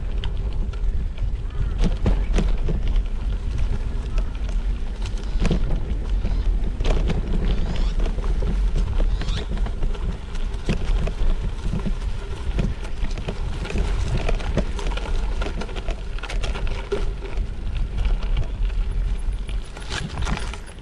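Heavy wind buffeting on the microphone, a constant low rumble scattered with knocks and rattles, while riding.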